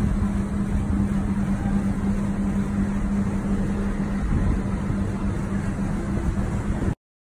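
A steady mechanical hum: one constant low tone over a rushing noise, cutting off abruptly near the end.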